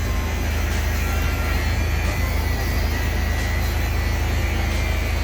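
Truck engine idling with a steady low drone while the hydraulic tailgate lift is lowered, a faint thin whine rising slightly in the middle.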